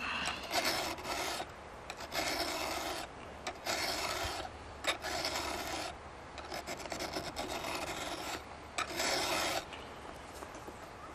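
Round file rasping across a chainsaw chain's cutter tooth in repeated strokes, about one a second, stopping near the end. The tooth's dulled, rounded corner, left by hitting something hard, is being filed back to a straight, sharp edge.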